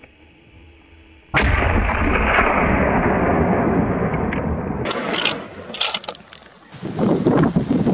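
Gunfire at a running wild boar: a sudden loud report about a second in that rumbles on for about three seconds as it fades, a few sharp cracks near the middle, and another loud rumbling stretch near the end.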